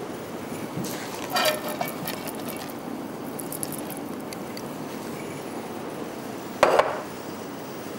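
Metal kitchen utensils clinking and clattering against cookware, with a clatter about a second and a half in that rings briefly, a few light ticks, and a louder sharp clatter near the end.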